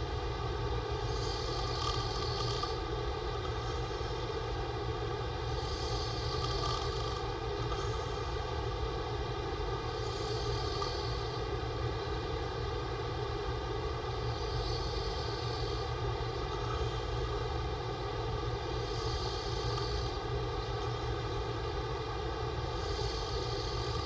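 A man snoring with his mouth open, one breath about every four seconds, over a steady droning hum.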